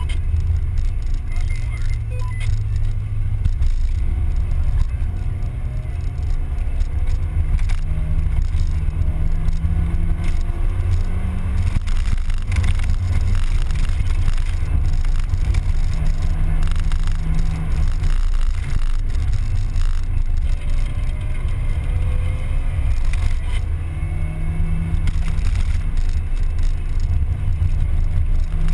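Mazda Miata's four-cylinder engine running while driving, its pitch rising and falling several times as it revs through the gears, over a heavy steady low rumble of wind and road noise.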